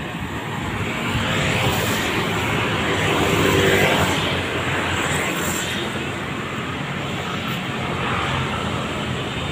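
Road traffic: cars and motorbikes passing on a multi-lane street, with one vehicle passing close and loudest about three to four seconds in before the noise settles to a steady hum of traffic.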